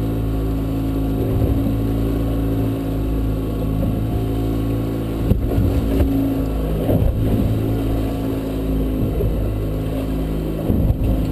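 Small outboard trolling motor running steadily at a low, even speed, with a couple of brief knocks on the boat.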